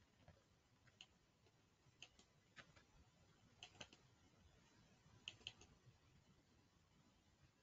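Faint computer mouse clicks over near silence, a handful of single clicks and quick pairs like double-clicks.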